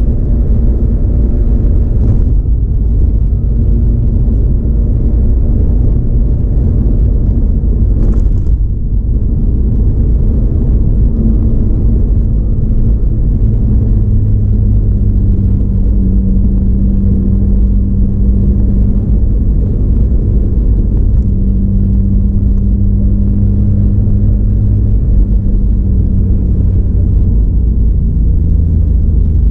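Mazda RX-8 on the move: its twin-rotor rotary engine and the road noise make a steady low rumble, the engine note stepping up and down in pitch several times as the speed changes.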